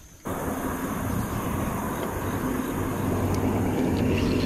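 A steady low mechanical drone with a rushing noise over it, cutting in abruptly just after the start and holding even.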